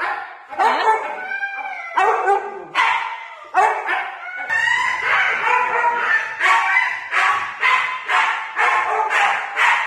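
A Siberian husky barking and yowling in a steady string of short calls that rise and fall in pitch.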